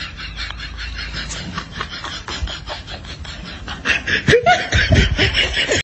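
Snickering laughter in quick short bursts, louder and more swooping in pitch from about four seconds in.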